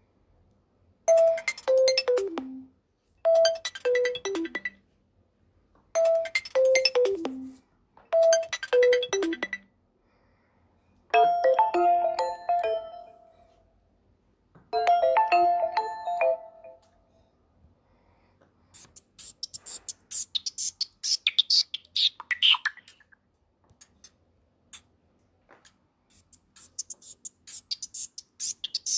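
Nokia Lumia 520 ringtones played one after another. First a short falling phrase of notes repeated four times, then a bright chime-like chord played twice, then high twittering bird-like chirps starting about two-thirds of the way in.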